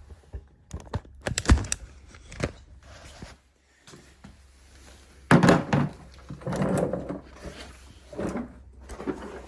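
Metal suspension parts being handled in a workshop: scattered knocks and clunks, a sharp one about a second and a half in, then a heavier thunk about five seconds in followed by more clattering.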